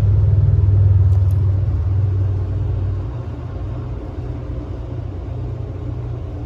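Steady low hum and rumble of an air-conditioning condensing unit, easing somewhat about three seconds in.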